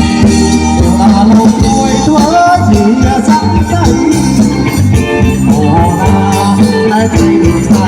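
Khmer romvong dance music playing loud, with a steady beat and a melody line.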